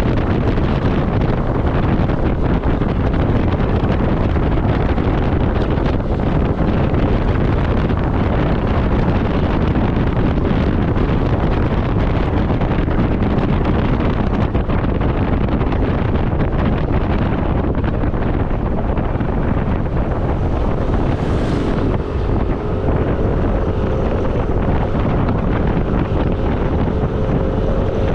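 Steady wind rush over the microphone of a motorcycle on the move, with engine and road noise underneath.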